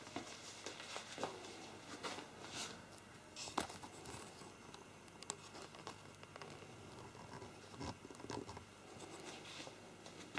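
Faint handling noise: scattered small clicks, taps and rustling, with one sharper click about three and a half seconds in.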